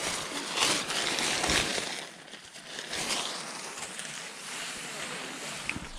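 A tarp rustling and crinkling as it is pulled and arranged by hand, in irregular bursts that are loudest in the first two seconds.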